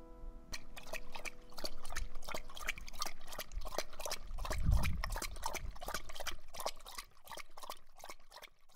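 A dog splashing in shallow water, making quick, irregular splashes and drips. A low thump comes about halfway through.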